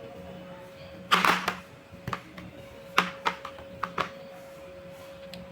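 Wooden toy fruit and vegetable pieces being cut with a toy knife. A short rasp comes about a second in, then several sharp wooden clacks and knocks.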